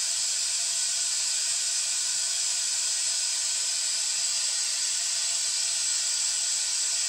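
Steady hiss of compressed air rushing through the venturi of a Schwaben coolant vacuum refill tool, pulling vacuum on a car's cooling system as it nears minus 22 inHg.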